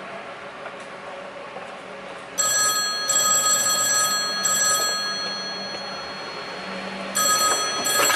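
A bell ringing with a bright, metallic, phone-like ring: a long burst of about two and a half seconds that fades away, then a second short burst about a second long near the end.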